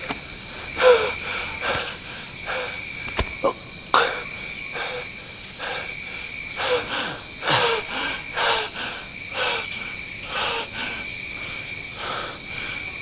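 Night-time jungle insects, crickets, chirring as a steady high drone, with a soft repeated sound about once a second underneath.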